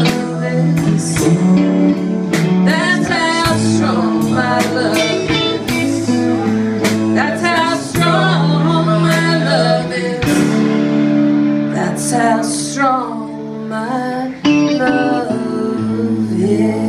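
Live band playing the closing section of a soul ballad: electric guitars, keyboard and drums together, with bending melodic lines over sustained chords.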